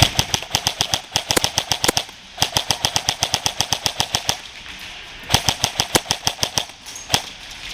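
KWA Ronin T6 airsoft electric rifle firing rapid full-auto strings, about a dozen shots a second, in three long bursts with short pauses between them.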